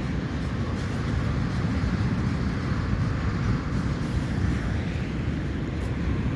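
Departing passenger train rolling on the rails at low speed: a steady, even rumble of carriages on the track.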